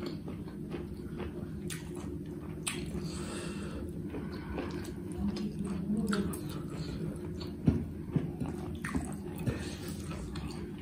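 Close-up chewing of a mouthful of rice and buffalo meat curry, with scattered wet mouth clicks and the soft squish of fingers mixing rice and curry on a plate. A steady low hum runs underneath.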